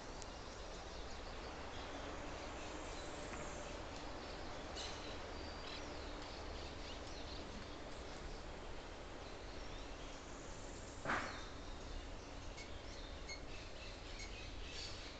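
Forest ambience: a steady hiss with faint, scattered bird chirps, and one brief louder sound about eleven seconds in.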